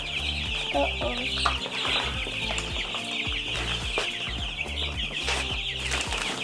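A brooder of about a hundred baby chicks peeping all at once: a dense, steady chorus of high, quick peeps.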